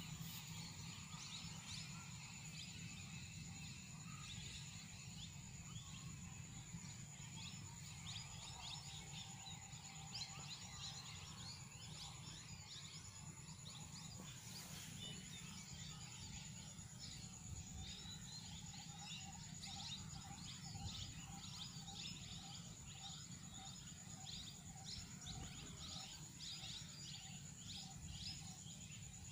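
Faint rural field ambience: many small birds chirping, with a steady high-pitched insect drone and a low rumble underneath. A lower repeated call joins in the second half.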